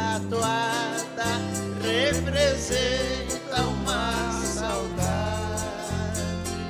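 A woman singing a slow Brazilian country (música caipira) song with vibrato. She is accompanied by violas caipiras (ten-string guitars) and a bass.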